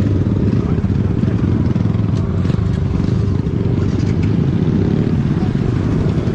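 Sport motorcycle engines running at low speed: a steady low rumble.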